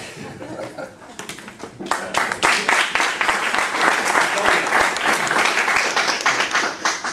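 Audience clapping at the end of a talk, building up over the first two seconds and thinning out near the end.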